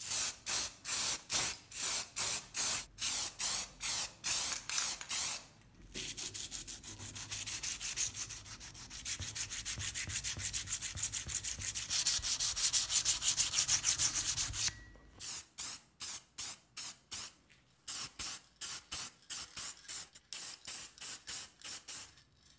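Hand sanding the primed steel handle of a corner pipe wrench with a sanding pad: back-and-forth scraping strokes about two a second, quickening into fast, continuous scrubbing from about six seconds in, then slowing to separate strokes again for the last seven seconds.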